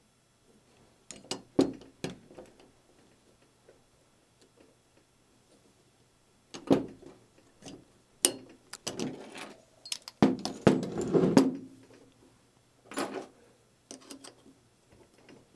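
Metal parts of a 5-inch-gauge riding-trolley bogie and its brake rig being handled on a workbench: scattered clicks, clinks and knocks, with a longer rattle of metal on metal about ten seconds in as the bogie is turned over and worked on.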